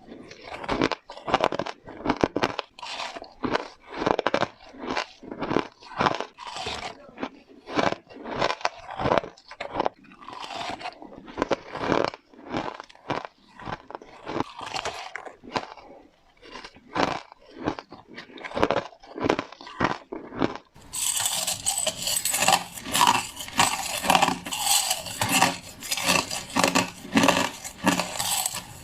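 Crushed ice being bitten and crunched between the teeth in quick, irregular crunches. From about twenty seconds in, the crunching turns denser and nearly continuous.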